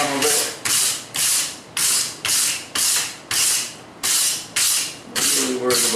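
Hand wire brush scrubbing red-hot forge-welded steel cable on the anvil, about two hard scraping strokes a second, brushing the scale off the hot steel.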